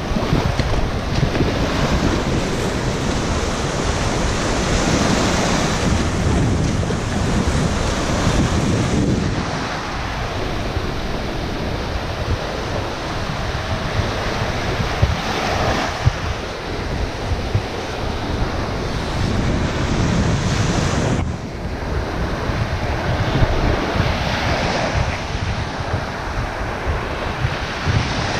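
Small surf breaking and washing up a sandy shore, a continuous rush that swells and eases, with wind buffeting the microphone.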